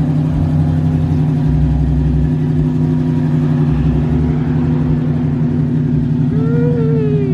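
A car engine idling steadily, with a constant low hum and rumble. A brief rising-then-falling tone rides over it near the end.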